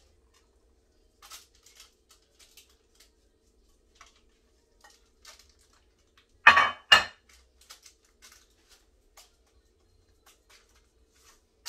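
A spoon clinking and scraping lightly against a dish of stiff fudge, with two loud knocks in quick succession about six and a half seconds in.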